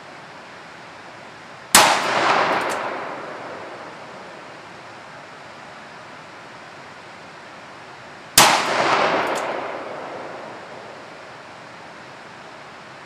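Two shots from a Smith & Wesson Model 629 .44 Magnum revolver with a ported barrel, about six and a half seconds apart. Each sharp crack dies away over about two seconds, with a faint echo just under a second after it.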